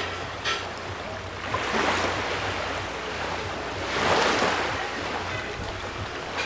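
Small waves washing onto a sandy beach. The wash swells twice, about two seconds in and again about four seconds in, over a steady low hum.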